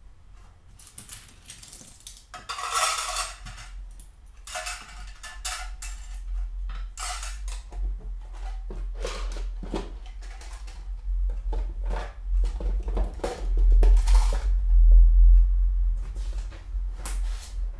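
Small hard objects clattering and clinking as they are handled and moved around in a container, in many separate bursts, with a low handling rumble that grows loudest near the end.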